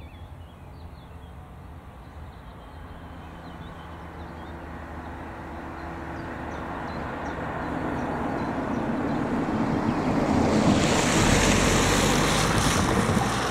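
A car approaching and driving over a level crossing: tyre and engine noise builds steadily and peaks about eleven seconds in, with a few short knocks as the wheels cross the rails.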